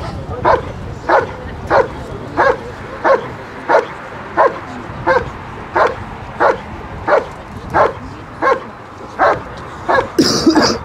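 German Shepherd barking steadily and rhythmically, about one and a half barks a second, at a helper in the blind: the bark-and-hold of IPO protection work. A short rushing noise cuts in near the end.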